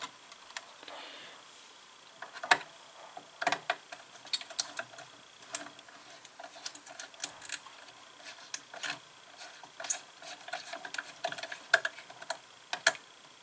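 Irregular small clicks, ticks and scrapes of a wire being fitted into a circuit-board screw terminal and the terminal screw turned with a small screwdriver.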